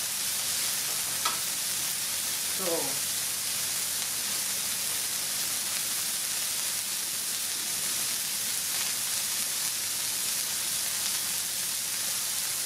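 Smashed beef burger patties frying on a hot flat-top griddle: a steady sizzle, with one sharp click just over a second in.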